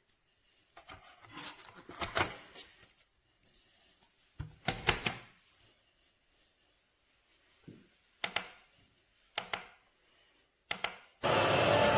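Scattered plastic clicks and knocks as a portable CD-player boombox is handled and its buttons are pressed, some in quick clusters. Near the end, a loud steady hiss-like rush starts abruptly from the unit.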